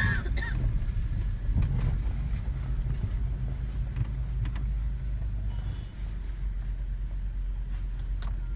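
Pickup truck heard from inside the cab while driving on a rough, muddy dirt track: a steady low rumble of engine and tyres, with a few short knocks and rattles.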